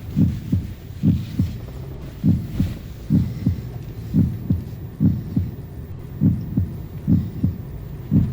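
Car turn-signal indicator ticking inside the cabin, a soft paired tick-tock about once a second, over a faint steady road hum.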